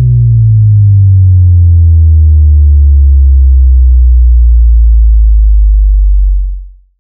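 Deep synthesizer tone sliding slowly and steadily down in pitch, loud and held for about six seconds, then fading out near the end. It is a trailer-style intro sound.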